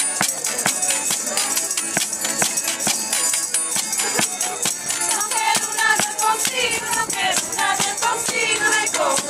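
Live Azorean folk music: a busy, even clicking percussion beat over string accompaniment, with voices joining in song about halfway through.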